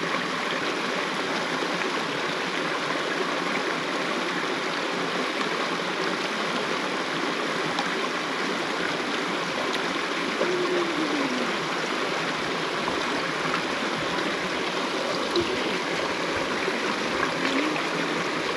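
Creek water flowing steadily, an even rushing hiss.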